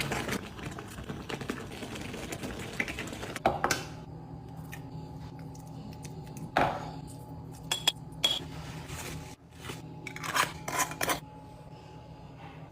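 Kitchen utensils knocking and clinking against dishes in a handful of separate knocks, over a steady hum.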